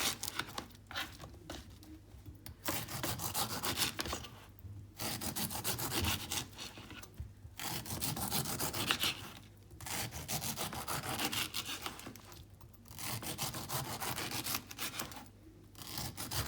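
Knife cutting and scraping the skin and eyes off a whole pineapple: runs of rasping strokes with short pauses between them.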